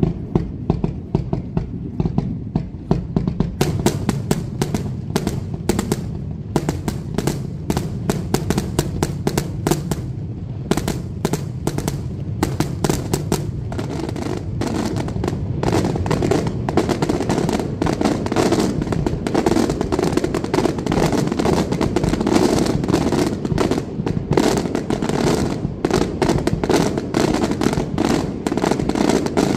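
Daylight fireworks going off in a rapid, continuous barrage of cracks and bangs over a steady rumble. The cracks grow denser a few seconds in, and the barrage gets a little louder about halfway through.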